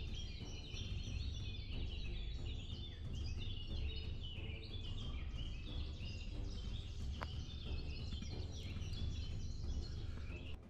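Many small birds chirping and twittering in a dense, continuous chorus over a steady low rumble.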